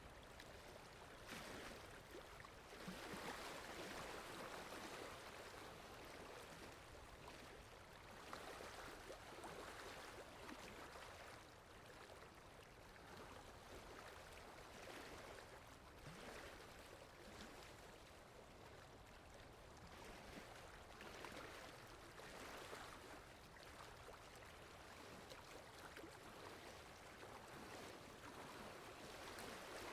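Faint water lapping in wind, a soft wash that rises and falls every few seconds.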